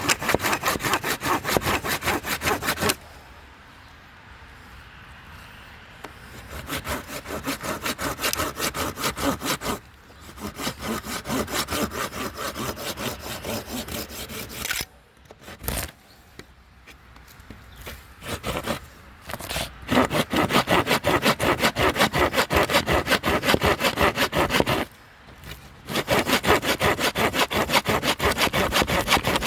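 Hand saw cutting wood in quick, even back-and-forth strokes, in several runs broken by short pauses.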